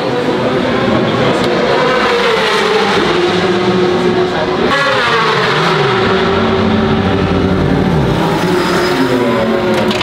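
Racing motorcycle engines running on the circuit, with several engines overlapping and their pitch rising and falling as they rev and pass.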